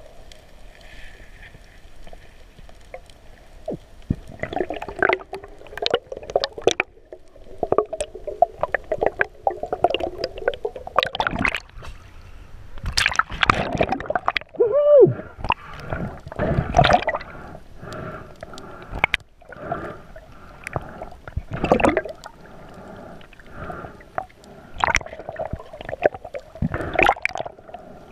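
Muffled underwater sound of water gurgling and bubbling, heard from a camera in a waterproof housing, with many irregular clicks and knocks.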